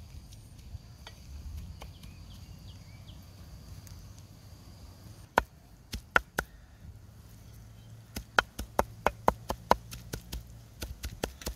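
Cleaver chopping meat on a round chopping block. A few sharp knocks come about five seconds in, then a faster run of about three chops a second near the end.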